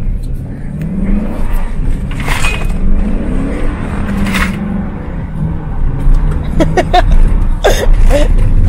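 Pickup truck's engine revving up and down while the truck drifts, heard from inside the cab over a steady low rumble, with a few sharp knocks.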